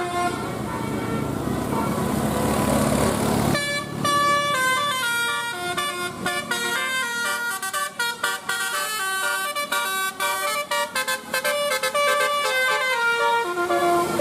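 Bus and road noise for the first few seconds. Then an Indonesian bus "telolet" horn, a multi-trumpet air horn, plays a quick melody of short, stepped notes.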